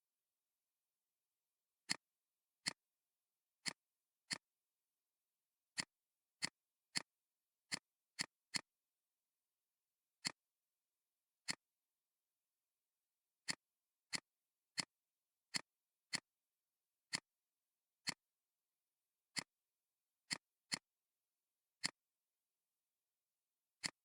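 Computer mouse clicking: single sharp clicks at irregular intervals, some in quick pairs, about twenty in all.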